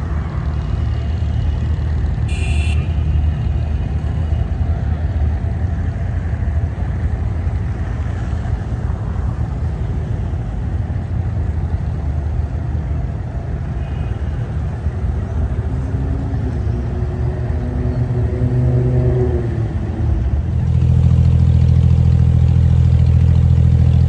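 Abra water taxi's diesel engine running as a steady low rumble; it gets louder and steadier about twenty seconds in.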